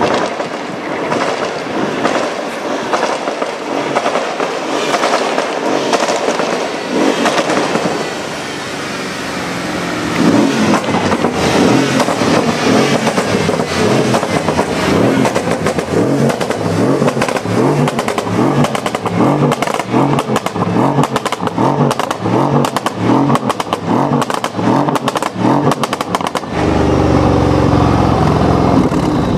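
Mercedes CLS 63 S AMG's twin-turbo V8 through a loud aftermarket exhaust, revving with rapid crackles and pops from the exhaust. Later the engine note pulses in a steady rhythm, and it turns louder and deeper in the last few seconds.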